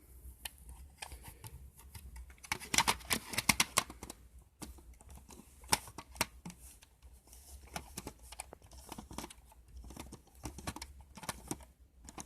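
Scattered small clicks and taps of a Honeywell 5193SD smoke detector's head and base being handled, with a quick run of clicks about three seconds in.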